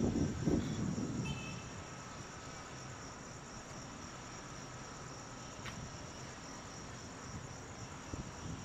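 Station ambience around an EMU800 electric train standing at the platform: a steady high-pitched insect chirring over a low steady hum. A louder low rumble dies away about a second in.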